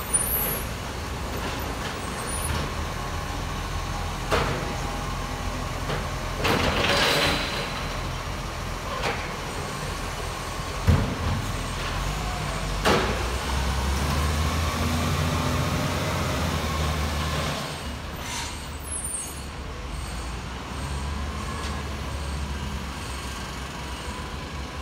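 Side-loading garbage truck's diesel engine running steadily, with a hiss of air brakes about seven seconds in and a few sharp knocks. The engine grows louder for a few seconds past the middle as the truck moves off.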